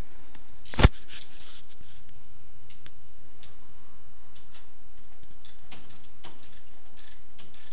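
Hand tools working on bolts in a car's engine bay during an alternator change: one sharp metallic knock about a second in, then scattered light clicks and ticks.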